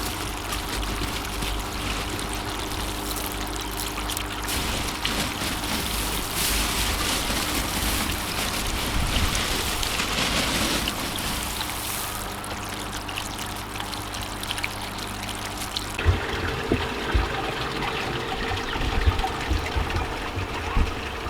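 Water trickling and splashing in an aquaponics system, a steady watery hiss with a faint hum underneath. About sixteen seconds in the sound changes abruptly: the hiss thins and a few low bumps come through.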